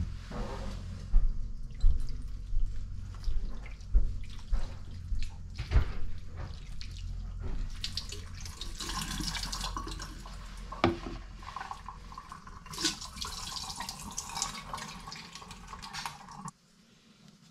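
Kitchen tap running into the sink for several seconds, shut off suddenly near the end, after a run of knocks and clinks of dishes being handled.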